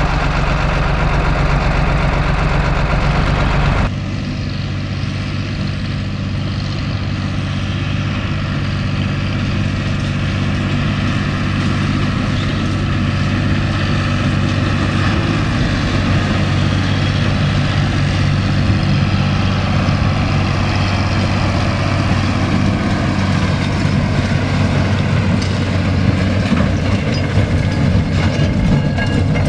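John Deere 8120 tractor's six-cylinder diesel engine running steadily. About four seconds in the sound changes suddenly to the tractor at work, pulling a Claas large square baler that is picking up hay, the engine holding a steady note under load.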